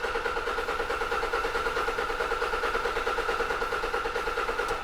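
Starter cranking the Toyota Hilux's 2.5 litre D4D diesel engine steadily with rapid, even pulses, without it firing, then stopping just before the end. It is a crank-no-start from fuel starvation: no fuel pressure reaching the pump, which the mechanic suspects is a blockage in the tank.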